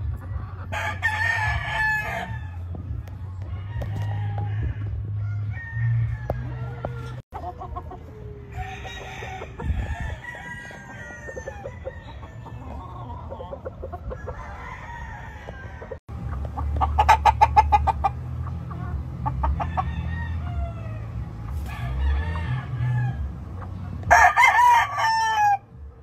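Gamefowl roosters crowing again and again, several loud crows a few seconds apart, the loudest near the end, with softer chicken calls between them and a steady low rumble underneath.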